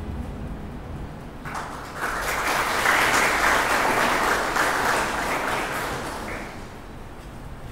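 Audience applauding. The clapping starts about a second and a half in, swells, and dies away about a second before the end.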